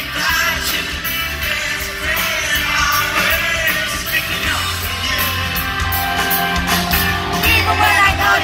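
Live rock band in concert: a male lead singer singing over drums, electric guitar, bass and keyboard.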